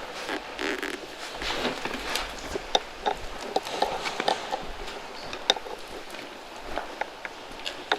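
Irregular rustling with many scattered light clicks and taps.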